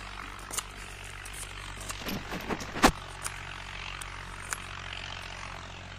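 A steady low drone like a distant engine, with a few light clicks and one sharp click about three seconds in, the loudest sound.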